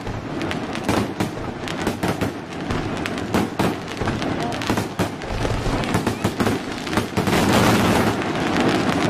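Fireworks going off: a dense, irregular run of sharp crackling pops from golden crackling effects. There is a low thud about five seconds in, and the crackle thickens into its loudest hissing stretch around seven to eight seconds.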